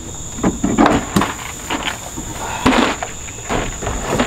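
Knocks, thuds and scraping as a person climbs onto a pickup's tailgate into the truck bed and shifts a plastic cooler by its handle, several sharp knocks spread through the few seconds. A steady high insect trill runs underneath.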